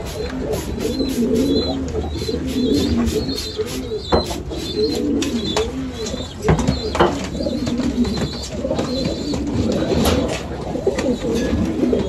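Many domestic pigeons cooing together in a loft of wire cages, overlapping calls that waver up and down without a break. A short high chirp repeats about twice a second, with a few sharp knocks now and then.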